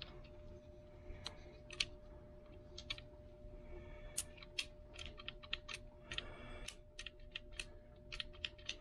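Faint, irregular small clicks and brief crinkles of blue painter's tape being picked at and peeled off by fingers. The tape had held the magazine release's spring compressed for installation.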